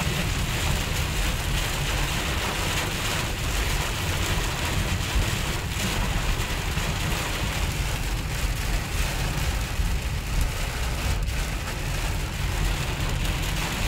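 Torrential rain drumming on a car's roof and windscreen, heard from inside the cabin, with a steady low rumble underneath.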